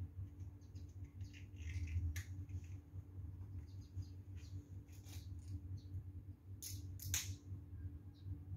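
Scattered light clicks and scrapes from handling and screwing together the plastic parts of a ring light and its stand, the loudest pair near the end, over a steady low hum.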